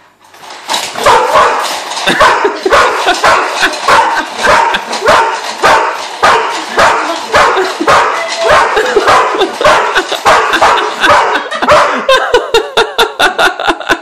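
Dog barking and yipping rapidly and excitedly, several barks a second, with the barks coming faster near the end.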